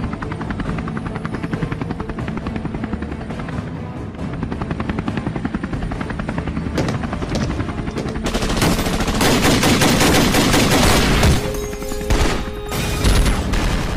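Action-film sound effects: a helicopter's rotor chopping in a fast, even beat, then from about eight seconds in louder, heavy machine-gun fire and an explosion, with the loudest blast near the end.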